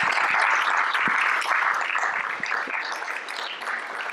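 Audience applauding, a dense patter of many hands clapping that slowly thins out over the last two seconds.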